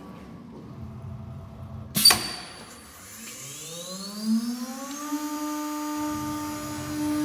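A sharp burst about two seconds in, then a CNC router's automatic-tool-change spindle spinning up: a whine rising in pitch for about two seconds, then holding a steady tone at running speed.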